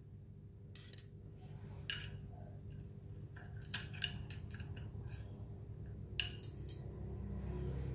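Metal spoon and fork clinking against clam shells and china as cooked clams are served onto a plate, a scattering of separate clinks and taps over a low steady hum.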